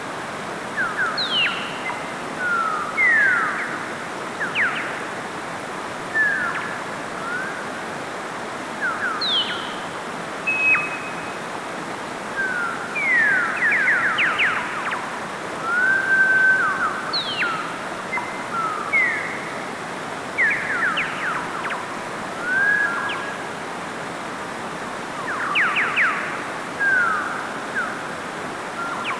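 Steady rushing of a mountain stream over rocks. Short high chirps and quick sweeping whistles come again and again over it and are the loudest sounds.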